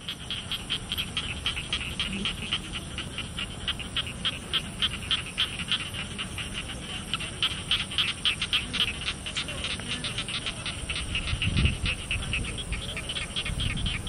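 Rice-paddy evening chorus of insects and frogs: a fast, regular chirping of several pulses a second over a steady high-pitched insect drone. A low rumble comes in about three-quarters of the way through.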